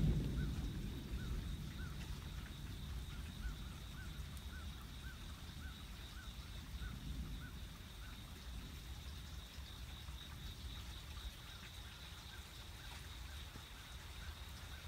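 A thunderclap's rumble dying away over the first few seconds into a faint, low, continuing rumble. Through the first half a bird repeats a short call about three times a second, growing fainter later on.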